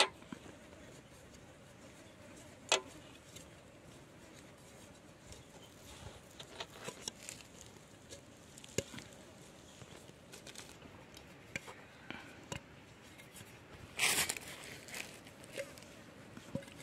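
Faint scattered taps and clicks of hands folding and pinching filled dough on a plastic cutting board, with a sharp tick about three seconds in and a brief louder noise about fourteen seconds in.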